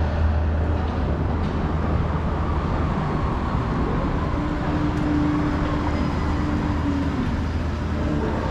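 City street traffic: a steady low engine hum under road noise, with a higher steady tone from a passing vehicle for about three seconds from the middle.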